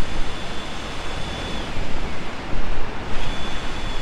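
Steady rush of surf and wind. A faint high-pitched whine holds steady, drops in pitch partway through, then comes back and slides down again near the end.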